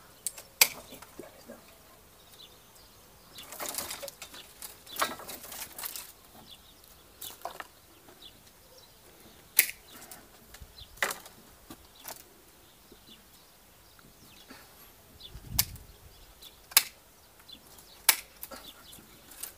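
Hand pruning shears snipping through grapevine canes, a sharp click with each cut, scattered every second or few. Vine branches rustle as they are pulled and shaken, most of all between about four and six seconds in.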